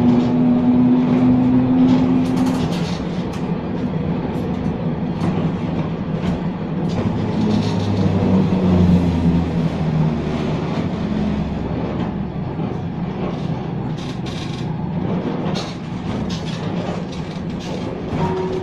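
Vintage museum tram running along the street rails, heard from inside the car: a steady rumble of wheels on the rails under the hum of the traction motor, which shifts in pitch, with scattered clicks and knocks.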